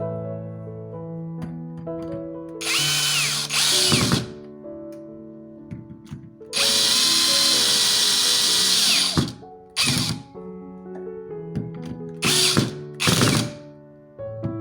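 Power drill driving screws in a series of short bursts of about a second and one longer run of about two and a half seconds in the middle, its motor whining as it spins up and stops.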